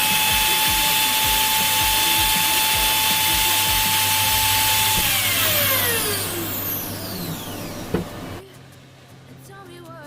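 Bosch GWS 6-100 angle grinder running at a steady high whine, then switched off about five seconds in, its pitch falling as the disc coasts to a stop. A sharp click follows near the end.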